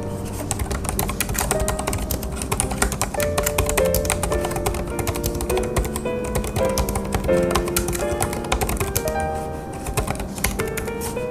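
Typing on a Hansung BK300 wireless keyboard with low-profile pantograph (scissor) keys: a fast, uneven run of key clicks. Background music with a melody plays under the typing.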